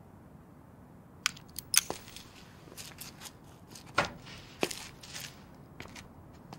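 A scattered series of sharp clicks and cracks, the loudest about two seconds in and again about four seconds in, over a faint hiss.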